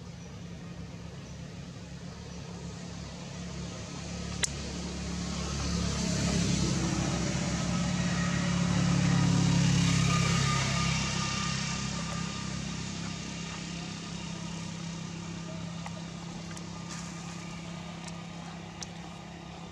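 A motor vehicle's engine passing by, swelling to its loudest about halfway through and then fading away. A single sharp click sounds about four seconds in.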